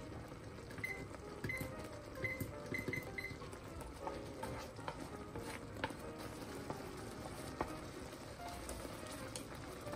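Chopsticks stirring a thick cream sauce of tteokbokki rice cakes as it simmers in a frying pan, with scattered clicks of the chopsticks against the pan.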